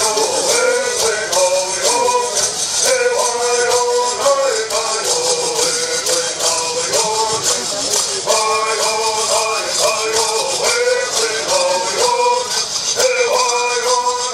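Southern California bird song: several male singers sing a rising and falling melody while shaking gourd rattles in a steady driving beat.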